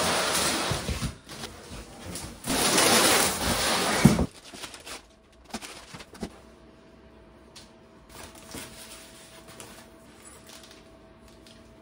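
A cardboard shipping box and its paper packing scraping and rustling as the box is opened and the fender is uncovered. There are two loud stretches of scraping in the first four seconds, the second ending in a knock, then quieter paper rustles and light knocks.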